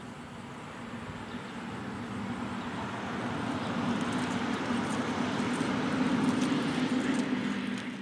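A motor vehicle's engine hum and road noise, growing steadily louder as it comes closer.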